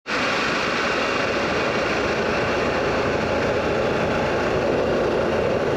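Motorcycle on the move: steady engine and wind rush, starting abruptly and running at an even level.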